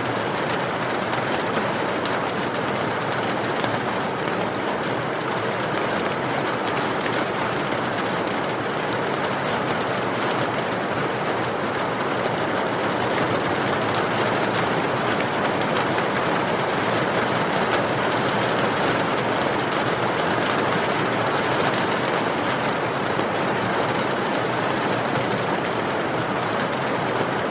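Steady rain with a wood fire crackling, an even wash of noise with faint scattered pops.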